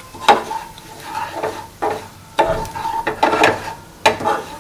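A spatula stirring and scraping ground spices frying in oil in a pan, with a light sizzle under scrape strokes about twice a second.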